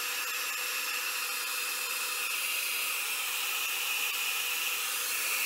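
Blow dryer running steadily, a constant hiss of blowing air.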